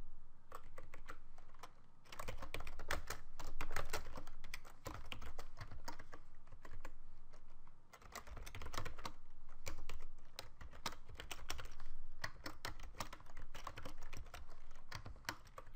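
Typing on a computer keyboard: quick runs of key clicks in several bursts, with short pauses about two and eight seconds in.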